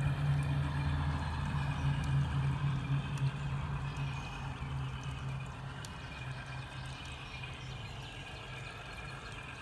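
Diesel engine sound from the onboard sound system of a G-scale Alco switcher locomotive: a steady low drone that gradually fades over the first half.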